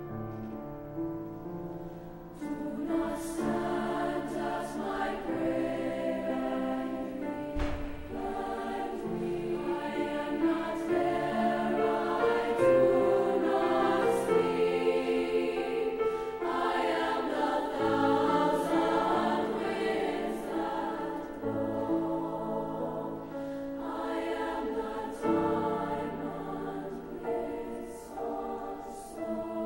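Honor choir singing a slow choral piece in long, sustained chords.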